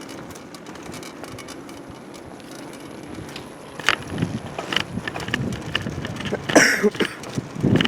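Bicycle being ridden: a steady rush of wind and tyre noise, then a run of sharp clicks and rattles from about four seconds in, with a short harsh burst of noise near the end.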